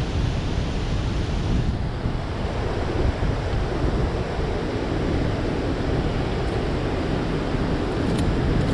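Steady rush of churning water released through a dam's open spillway gates, mixed with wind buffeting the microphone.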